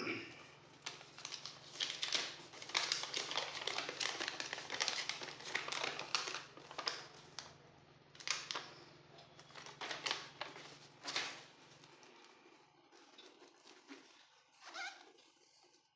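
Plastic packaging crinkling and rustling as it is handled: dense crackly rustling for about twelve seconds, then only a few scattered rustles near the end.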